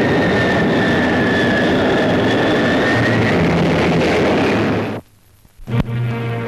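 Jet aircraft engine noise: a steady rush with a high whine, cut off abruptly about five seconds in. After a click, music begins.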